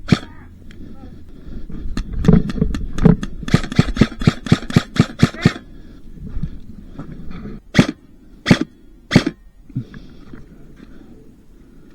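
Electric airsoft guns firing: a quick string of sharp shots lasting about three and a half seconds, then three single shots about two-thirds of a second apart.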